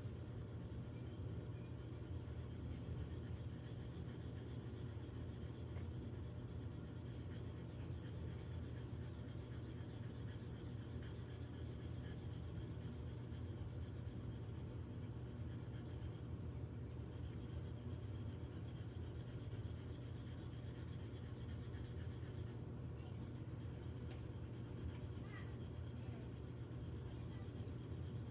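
Colored pencil scratching and rubbing on paper as a drawing is shaded in, over a steady low hum.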